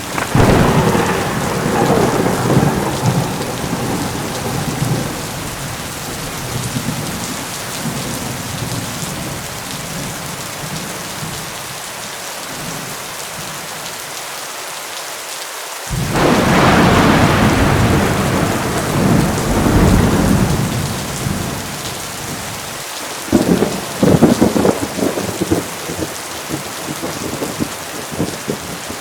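Heavy rain falling steadily with rolling thunder. A rumble at the start dies away over several seconds, a second one begins suddenly about sixteen seconds in and rolls for about six seconds, and a crackling peal breaks out about twenty-three seconds in.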